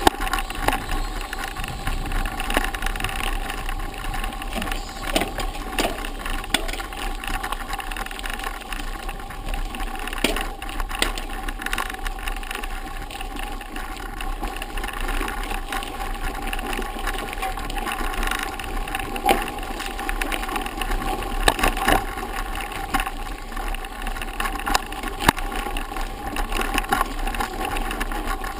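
Mountain bike rolling over a gravel forest road: steady tyre noise on the loose stones, with frequent knocks and rattles as the bike goes over bumps.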